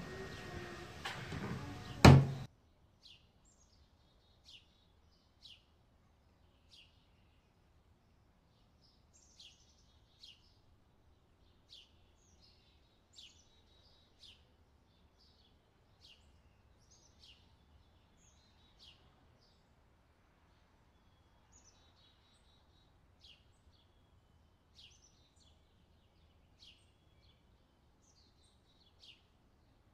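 A loud, noisy opening that ends in a sharp knock about two seconds in, then faint, short, high bird chirps scattered every second or two.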